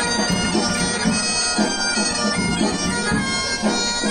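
Bagpipe music with a steady drum beat, played through a sound system.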